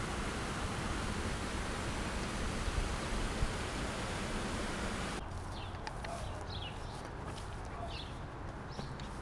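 A steady rushing noise for about five seconds, then a sudden cut to a quieter outdoor bed with small birds chirping several times in short high calls.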